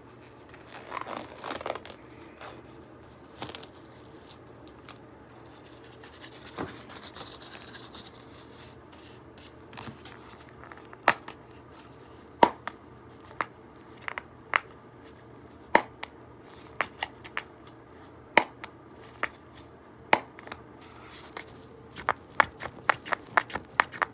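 Gloved fingers tapping on a clear plastic cup: sharp, separate taps at an irregular pace that start about halfway through and come faster near the end. Before them, soft rustling and crinkling from the gloves and packaging.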